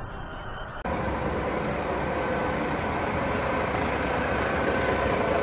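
Steady idling of a large truck's diesel engine with faint steady whining tones. It starts abruptly about a second in, after a short stretch of quieter driving noise.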